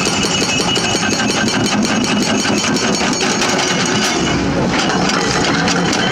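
Heavy excavator diesel engine running, with a rapid, even clatter over it; the sound changes about four seconds in.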